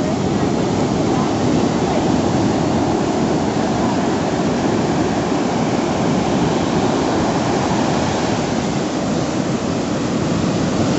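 Heavy ocean surf from a hurricane swell, a steady, loud roar of breaking waves with no single wave standing out.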